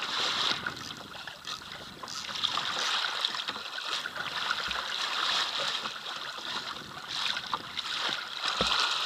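Seawater rushing and splashing along a kayak's hull as a hooked porbeagle shark tows it at about three knots, with two dull knocks from the boat about four seconds apart.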